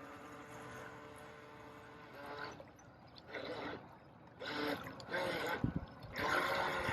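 A small electric motor on a remote-control toy boat whines steadily and fades over the first couple of seconds as the boat runs off across the water. Distant voices follow.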